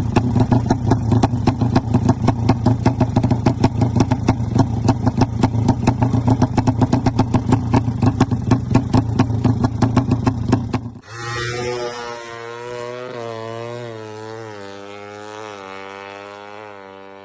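Drag-tuned Suzuki Satria FU motorcycle engine, bored to 200cc, running loud with a fast, even pulse. About eleven seconds in it stops abruptly, leaving a quieter, steady engine-like hum that wavers slightly in pitch.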